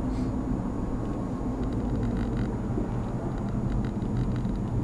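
A car's engine and tyres heard from inside the cabin while cruising at a steady speed: a steady low drone.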